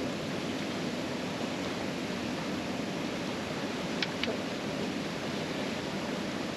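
Steady rushing of water pouring over a river spillway, with two short sharp clicks about four seconds in.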